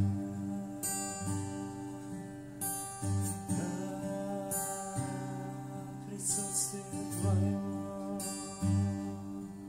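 Acoustic guitar strumming slow worship chords, each strum left to ring. A held melody note glides in above it for a few seconds near the middle.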